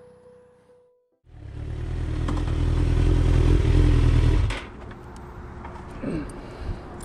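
Motorcycle engine running loud, building for about three seconds, then dropping off suddenly.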